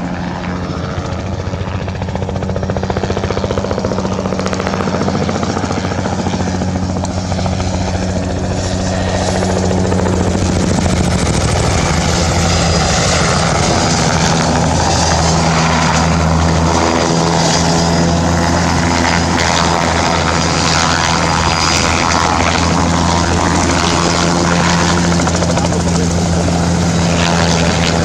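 Bell 206 JetRanger helicopter flying low and close, its two-bladed main rotor and turbine engine running steadily. It grows louder over roughly the first ten seconds as it comes in, then stays loud.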